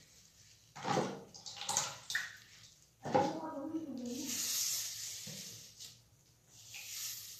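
Wet hissing and squishing of a comb and hands working a milk-and-egg mixture through soaked hair, with two short wordless vocal sounds about a second and three seconds in.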